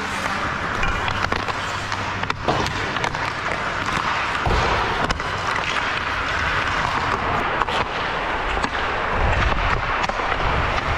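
Ice hockey warmup close to a skater: skate blades scraping and carving on the ice in a continuous hiss, with scattered sharp cracks of pucks struck by sticks and hitting the boards.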